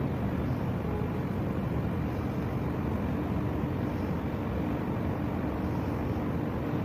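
Steady low rumble of ship engines and machinery, with a faint hum, from a large cruise ship and an escort tug moving slowly through the harbour.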